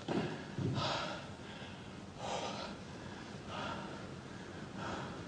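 A man breathing heavily, with about four deep, noisy breaths spaced a little over a second apart.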